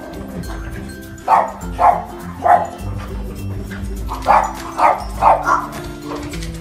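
Puppies at play giving short, high yapping barks: three spaced about half a second apart near the start, then a quicker run of four a few seconds later, over background music with a steady beat.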